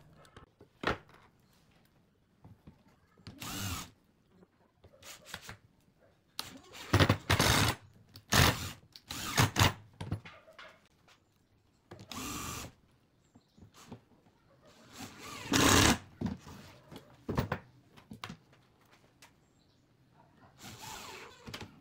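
Cordless impact driver running in short bursts of about a second, driving screws into pine boards, with pauses and light knocks of wood between.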